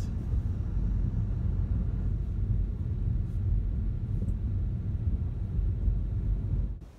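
A car driving, a steady low rumble of road and engine noise that drops away abruptly near the end.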